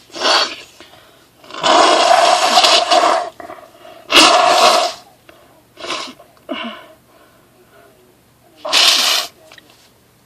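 A woman in a fit of sneezing: a run of loud sneezes with quiet gaps between them. The longest comes about a second and a half in, with shorter, weaker bursts around the middle and a last loud sneeze near the end. The fit is set off by an irritated, tickling nose.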